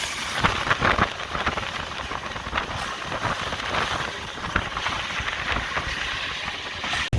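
Running noise inside the cab of a GE U18C diesel locomotive under way in rain: a steady rushing hiss with scattered, irregular clicks and rattles. It cuts off abruptly right at the end.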